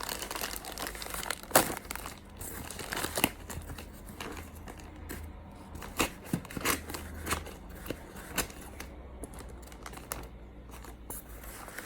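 Shipping packaging being handled and unwrapped by hand: irregular crinkling and crackling, with some tearing, throughout.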